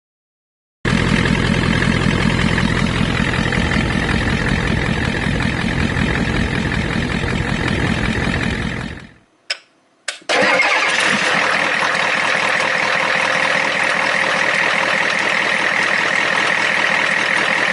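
Ford 7.3 IDI V8 diesel engine idling steadily, heard close up in the engine bay. The sound breaks off for about a second in the middle, with a couple of clicks, then goes on.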